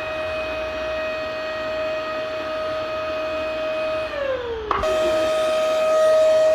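Vacuum cleaner motor running with a steady high whine. A little after four seconds its pitch sinks as it begins to wind down, then after a click it is back at full speed and louder.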